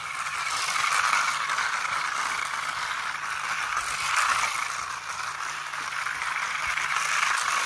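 Battery-powered toy race car running on a segmented plastic Glow Tracks track: a steady whirring rattle of its small motor and plastic wheels clattering over the track links, swelling and fading as the car circles past.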